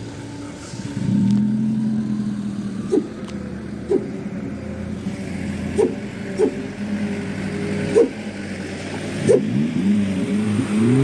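Vehicle engine revving hard under load, its pitch climbing about a second in and rising and falling again near the end, as it strains with its tyres stuck on a rain-soaked road. Several short sharp knocks come through over it.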